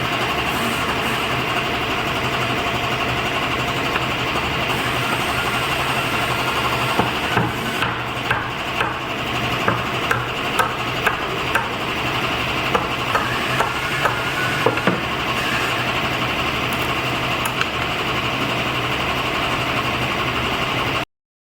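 A woodworking machine runs with a steady hum. From about seven seconds in there is a run of a dozen or so sharp knocks, roughly one or two a second, lasting about eight seconds. The sound then cuts off suddenly near the end.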